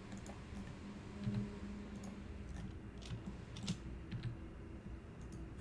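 Scattered faint clicks from a computer mouse and keyboard, roughly one every half second to a second, as points are clicked and extruded one by one.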